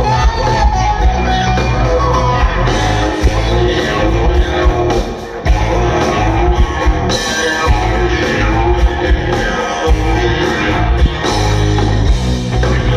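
Live rock band playing loud through a festival PA, heard from within the crowd: electric guitar, bass and drums with a man singing.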